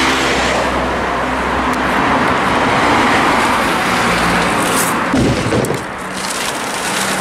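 Road traffic passing on a city street: car engine and tyre noise that thins out about five seconds in.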